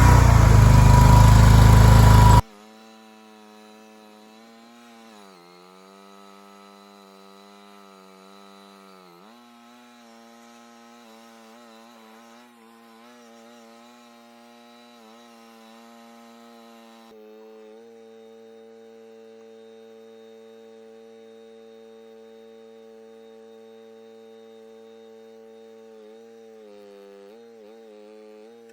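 Mini skid steer engine running loud, cut off abruptly after about two seconds. A faint, steady hum follows whose pitch wavers and dips now and then.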